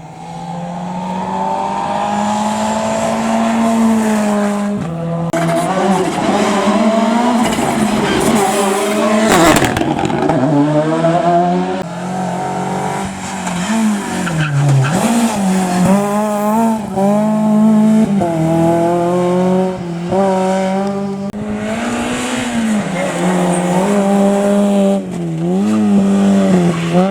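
Rally cars driven hard, their engines revving up and dropping back through gear changes, with tyre squeal. About ten seconds in, one engine's pitch drops sharply as a car sweeps past.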